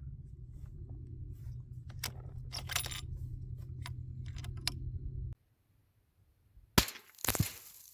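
Metallic clicks and clinks of a .338 Lapua Magnum bolt-action rifle's bolt being worked after a shot, the spent brass case coming out, over a low steady rumble. The sound cuts out about five seconds in, then comes a sharp click and a brief clatter near the end.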